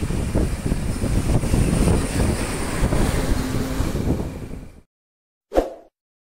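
Intercity bus driving past close by, its engine and tyres rumbling with wind buffeting the microphone. The sound cuts off suddenly about five seconds in, and a brief sound effect follows.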